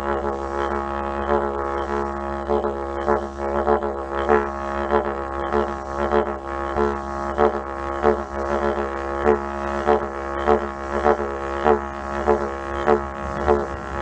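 Yidaki (didgeridoo) played with a continuous low drone and rich overtones. The drone is pulsed in a steady rhythm of accents, a little under two a second, which grows more marked after the first few seconds.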